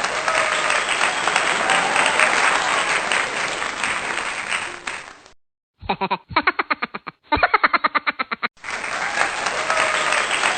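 Crowd applause, which cuts off about five seconds in; after a short gap comes a brief stretch of quick, evenly repeated pulses, and the applause returns near the end.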